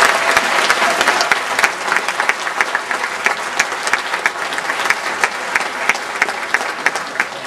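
An audience applauding, many people clapping at once, the clapping thinning out and getting quieter toward the end.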